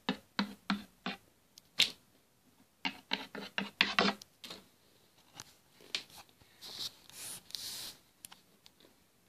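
Irregular light clicks and taps of small plastic toy figures being hopped and set down on a wooden desk, with some rustling handling noise.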